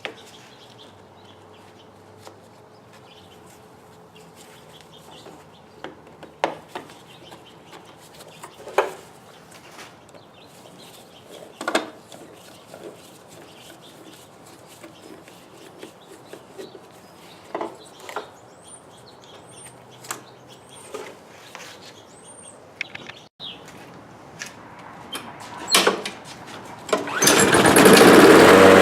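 Scattered knocks and clicks of parts being handled, a few high bird chirps, then about 27 seconds in a Briggs & Stratton lawn mower engine is pull-started and catches, running loud and steady. The engine now starts after its bowl-type carburetor has been cleaned.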